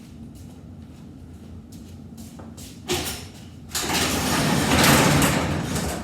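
Sliding-door sound effect over a steady low electrical buzz: a sharp click about three seconds in, then a loud rushing whoosh of the door opening that swells for about two seconds and fades.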